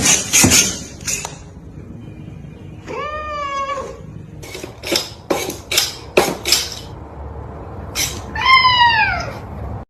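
A domestic cat meowing twice, the second meow falling in pitch. A string of sharp knocks and clattering comes between the meows.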